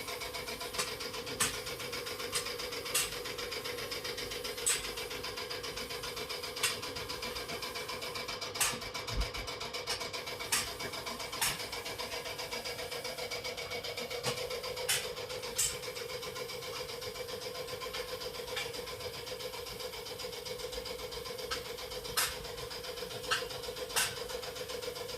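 Toyota Land Cruiser engine running at a steady idle, with scattered sharp clicks over it.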